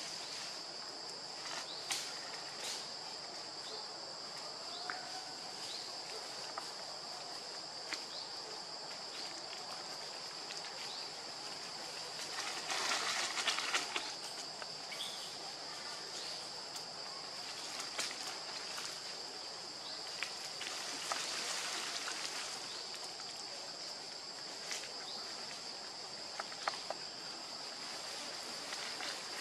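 Steady high-pitched drone of forest insects, with scattered small clicks. There are two short spells of rustling in dry leaf litter, one near the middle and one about two-thirds of the way in.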